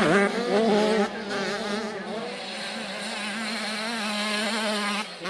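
Several small two-stroke motocross bikes racing, their engines buzzing and revving up and down in pitch over one another. The sound cuts off abruptly near the end.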